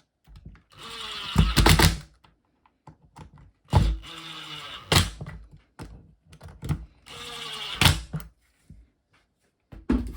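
A cordless power driver running in three short bursts of about a second each, driving screws into an impact driver's plastic housing, each burst ending in a few sharp clicks; small clicks of handling in between.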